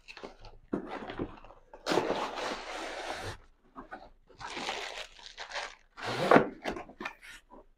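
A cardboard box of a building-block set being opened by hand: several bursts of cardboard and plastic packaging rustling and scraping, with a louder bump about six seconds in.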